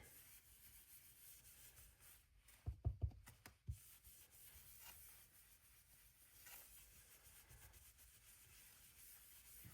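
Faint rubbing of an ink blending brush swiped over cardstock, laying on blue ink, with a few soft taps about three seconds in.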